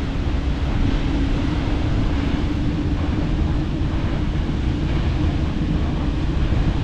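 Steady rush of wind and falling water buffeting the microphone, over the low, even drone of the tour boat's engine.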